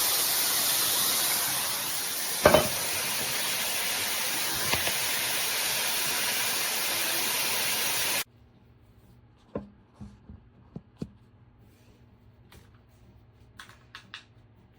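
Handheld shower head spraying water in a steady hiss, with one sharp knock a couple of seconds in. The spray cuts off suddenly about eight seconds in, leaving a few faint clicks and taps.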